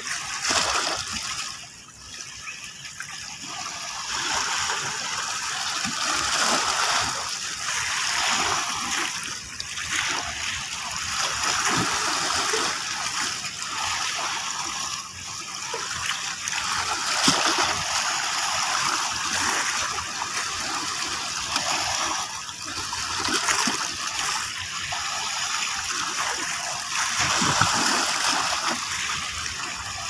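Small sea waves washing in over rocks and splashing, the surge rising and falling every few seconds.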